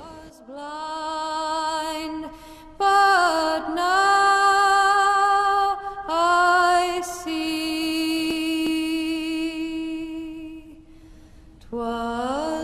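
Slow music of a woman's voice singing long, drawn-out notes with a slight waver, each held a second or more, sliding up or down into some of them.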